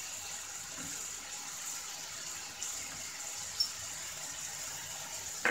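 Chicken, onions and tomatoes frying in oil in a pan, a steady sizzling hiss, with one faint click about three and a half seconds in.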